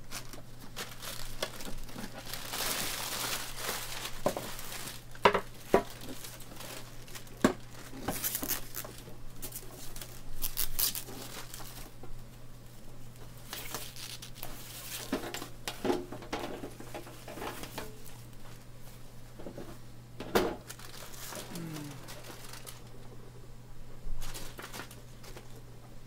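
Thin plastic bag crinkling and rustling in irregular bursts as it is pulled off and handled, with a few sharp knocks along the way.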